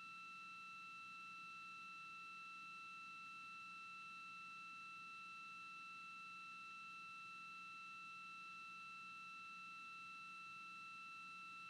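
Faint, steady high-pitched electronic tone with overtones, unchanging throughout, over a low hiss and a weaker low hum.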